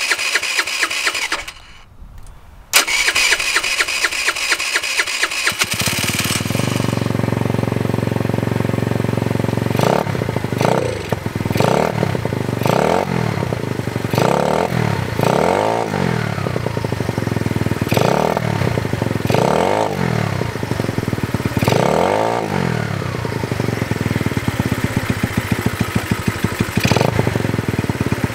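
GY6 80cc big-bore scooter's single-cylinder four-stroke engine, fitted with a Mikuni flat-slide carburettor. The electric starter cranks, stops briefly and cranks again until the engine catches about six seconds in. It then runs while the throttle is blipped over and over, the revs rising and falling about once a second, as the new carb is being tuned.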